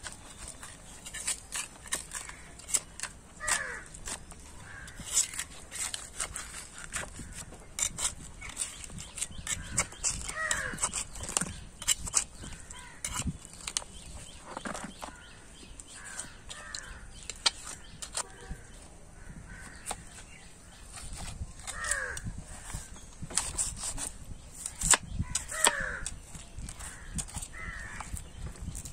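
A steel butcher's knife repeatedly clicks, taps and scrapes against bone and a wooden chopping block as meat is cut from an animal's head. Birds call several times over it, each call short and falling in pitch.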